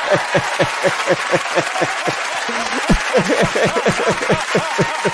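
A man laughing hard in rapid, evenly repeated bursts, about five or six a second, over a studio audience laughing and applauding.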